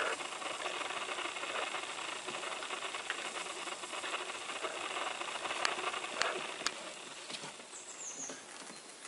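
Flat-coated retriever puppies scuffling on a blanket and being handled: a steady rustle and shuffle of fabric and fur with a few small clicks, easing off near the end. A brief high chirp sounds about eight seconds in.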